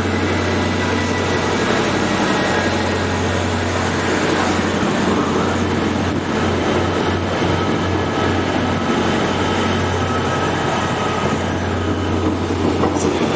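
Train in the station: a steady low hum under an even rushing noise, holding at the same level throughout.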